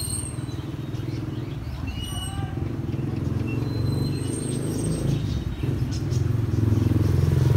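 Motor vehicle engine running on the street, a low hum that grows louder toward the end as the vehicle comes closer.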